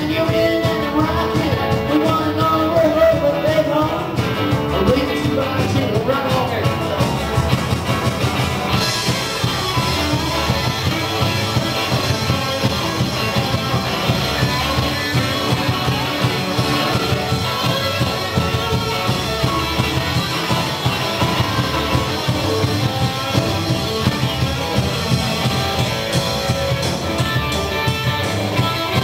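Live rock and roll band playing, with electric guitars over a steady, even beat. The high end gets brighter and fuller about nine seconds in.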